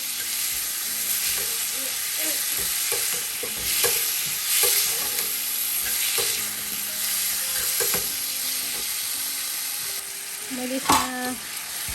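Carrots for carrot halwa sizzling in a hot pan and being stirred with a spoon: a steady frying hiss, with the spoon clicking and scraping against the pan now and then.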